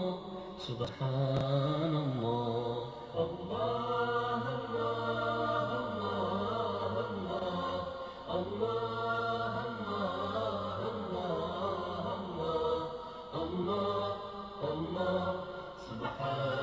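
Arabic Islamic nasheed: voices chanting a slow melody with long held notes.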